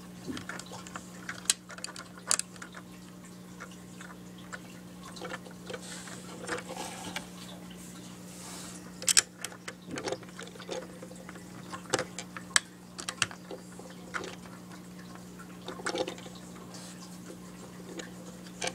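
Irregular small clicks and taps of Lego plastic pieces being handled and fitted back together on the toy garbage truck, over a steady low hum.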